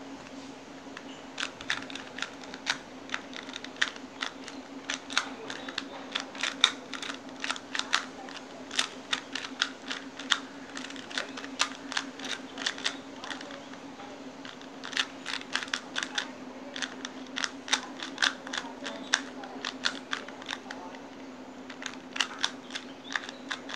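A 2x2 Rubik's cube being twisted by hand: its plastic layers click and clack in quick, irregular runs, pausing briefly about halfway and again near the end, over a steady low hum.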